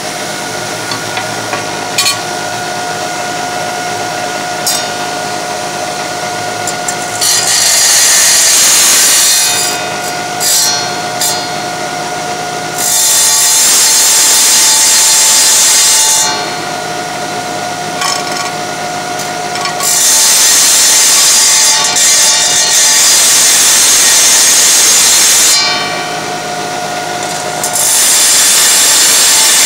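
Wet tile saw running with a steady whine, its blade grinding into a ceramic tile four times in long passes to clean out a corner notch.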